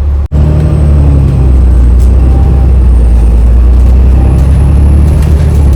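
A bus running, its engine a steady, loud low drone, with a brief dropout about a third of a second in.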